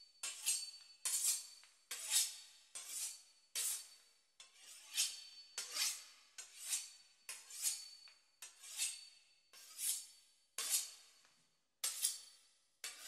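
A knife sawing back and forth through the crisp pastry crust of a beef Wellington: a steady run of short, crisp strokes, about two a second.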